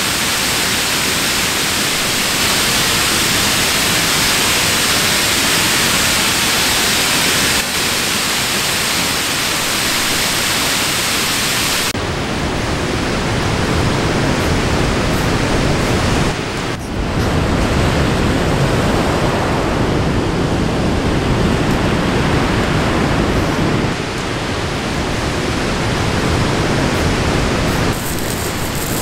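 Waterfall pouring over a rock ledge, a steady bright hiss; about twelve seconds in it cuts to ocean surf breaking on a pebble beach, a deeper, lower wash of waves.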